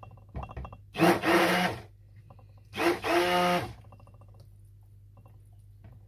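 Stick blender running in two short bursts in raw soap batter, each just under a second long and about two seconds apart, mixing in powdered pigment. A few light taps come just before the first burst.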